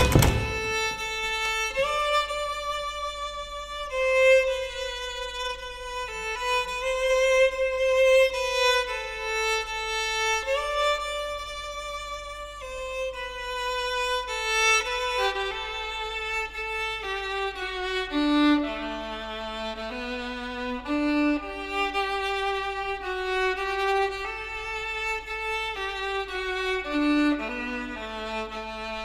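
Background film music: a single violin-like melody moving note by note and drifting lower in pitch over time, over a steady low hum. A short thump right at the start.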